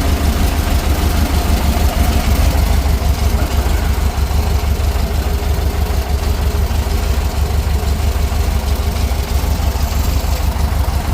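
Volkswagen Beetle's air-cooled flat-four engine idling steadily with a deep exhaust rumble, freshly tuned with its carburettor adjusted.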